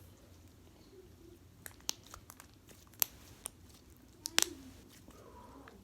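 Slime being squeezed and stretched by hand, giving a scattered string of sharp pops and clicks, the loudest about three seconds in and again at about four and a half seconds.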